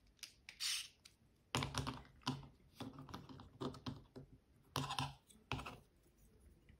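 Irregular clicks and light knocks as a carbon-fibre drone frame and a TPU printed part are handled and pressed together, mostly from about a second and a half in.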